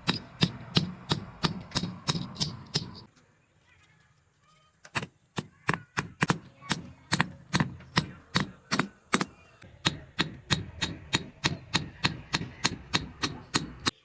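Hammer blows on metal at the forge, striking in a steady rhythm of about three to four blows a second. They pause for under two seconds about three seconds in, then carry on.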